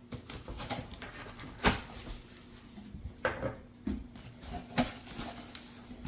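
Cardboard shipping box being opened by hand: rustling of the flaps with several sharp snaps and knocks, the loudest about a second and a half in.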